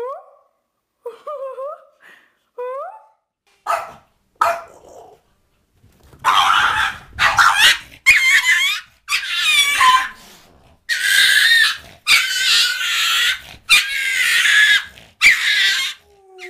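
Bulldog puppies giving short, rising yips, then two sharp clicks, then a dog's loud, rough barks and growls in a run of bursts about a second long each.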